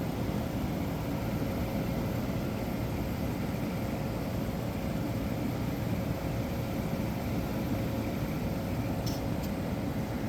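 1985 White Westinghouse 5900 BTU room air conditioner running with its case off: the original rotary compressor and fan motor run steadily with a low hum and a thin steady tone. The unit is fully charged and under pressure. A couple of faint clicks come about nine seconds in.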